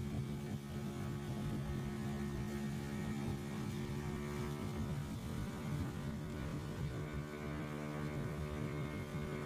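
Boat engines running steadily across the river: an even, droning hum with several steady tones.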